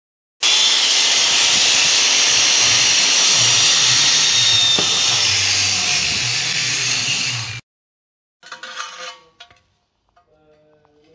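A handheld power tool runs steadily on a thin stainless steel disc for about seven seconds, then cuts off abruptly. A few light metallic clinks follow as the disc is handled.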